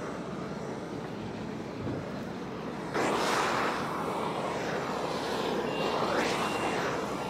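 Hand-held propane torch burning with a steady rush of flame, louder from about three seconds in, as it heats geotextile fabric to tack it to itself.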